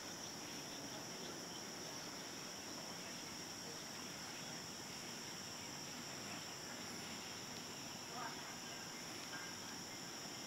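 Steady, high-pitched chorus of insects, unbroken throughout, over a faint outdoor background hush, with a brief faint call about eight seconds in.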